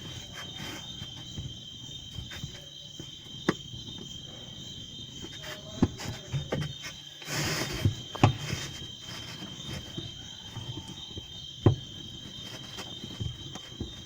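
Steady high chirring of crickets, with a few sharp knocks and clicks of washing-machine dryer parts being handled and a brief scraping rustle about seven seconds in.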